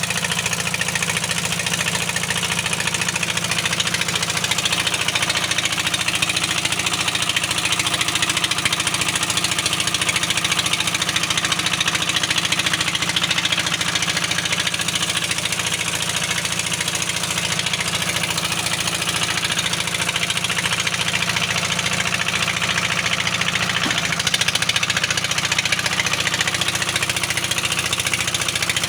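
Heavy-equipment diesel engine running steadily at an even speed, with no change in pitch or level.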